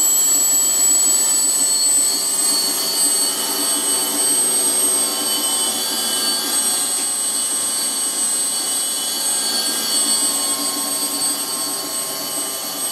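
Tripet MUS 100 internal grinding machine running, a steady high-pitched whine over a motor hum.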